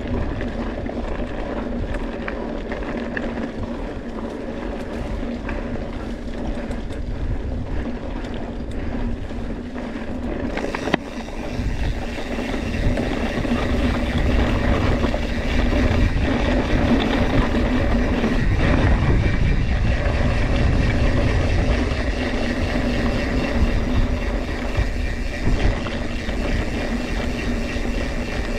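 Wind rushing over a helmet- or bike-mounted action camera's microphone while a mountain bike rolls over a dry, dusty trail, with a steady hum. It grows louder about eleven seconds in, with a few sharp knocks from the bike over bumps.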